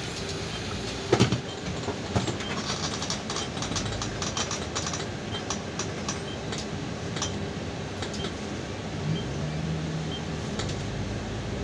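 Cabin noise inside a Golden Dragon XML6125 city bus on the move: steady engine and road rumble, with a sharp knock about a second in and a run of rattling clicks from the interior fittings after it.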